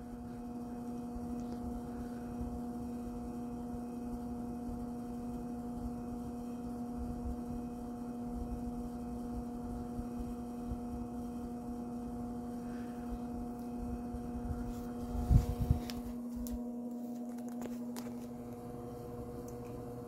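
1960s Arvin 7414 box fan running with a steady electric motor hum, one low tone with fainter overtones above it. About fifteen seconds in come a few loud knocks, after which the low rumble drops away while the hum carries on.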